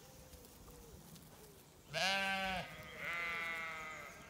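Zwartbles sheep bleating twice: a short, lower bleat about two seconds in, then a longer, higher-pitched bleat right after it.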